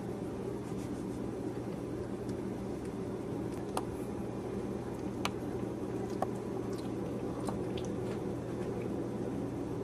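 Newborn puppies suckling at their mother: small wet smacks and clicks, a few seconds apart, over a steady low background hum.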